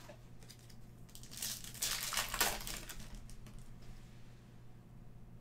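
Foil trading-card pack wrapper crinkling in the hands, a burst of about a second starting about a second and a half in, with light handling clicks around it.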